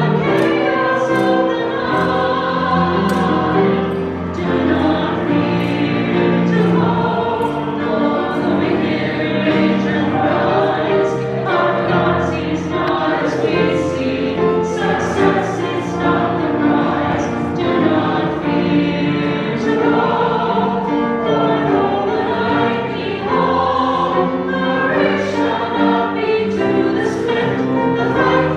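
Choir singing a hymn, many voices holding notes together in chords that change every second or so.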